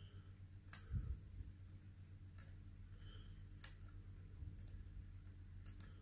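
Lock pick probing the pin stacks of an ASSA Ruko Combi Plus high-security cylinder under light tension: a handful of faint, irregular clicks, with a soft knock about a second in.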